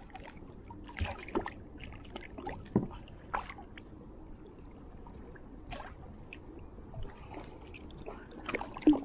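Water lapping and sloshing against a plastic kayak, with scattered small splashes and knocks on the hull.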